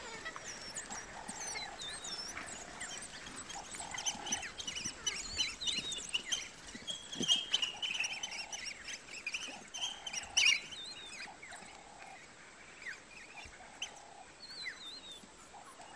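Pack of African wild dogs twittering and squeaking as they feed on a kill: many overlapping high chirps that rise and fall, busiest in the middle and thinning toward the end. A short lower note repeats every second or so underneath.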